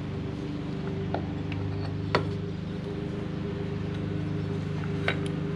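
A few light clicks and clinks of scooter transmission parts being handled as the drive belt and variator pulley are fitted, the sharpest about two seconds in, over a steady low hum.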